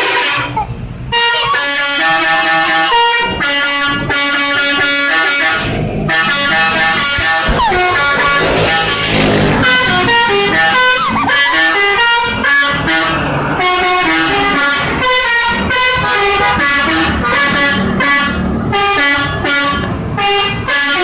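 Telolet bus horns: a bus's multi-tone air horns playing quick melodic runs of short notes, the tune repeated again and again with brief breaks between phrases.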